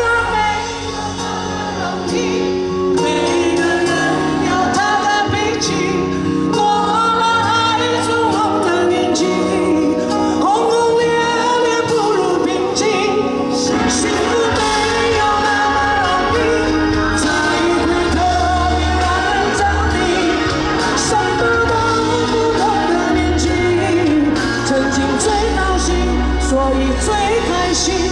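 A woman singing a pop song live with band accompaniment, her voice and the instruments carrying the reverberation of a large venue.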